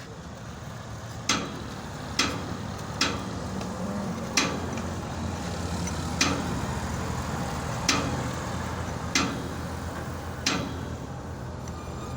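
Sharp metallic clicks as a motorcycle chain is worked onto its sprocket by hand: eight clicks at uneven intervals, roughly a second apart. A steady low engine hum runs underneath.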